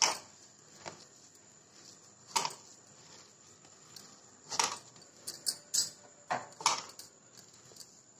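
A hand mixing crumbled paneer and bread crumbs in a plastic bowl: scattered soft rustles and short light clicks, a dozen or so spread irregularly.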